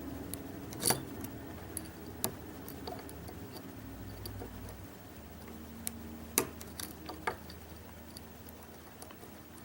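Small, irregular metallic clicks and ticks from lock picks working the pins of a Mul-T-Lock Interactive cylinder held in a false set, while the remaining pins are probed. The sharpest clicks come about a second in and about six and a half seconds in, over a faint steady hum.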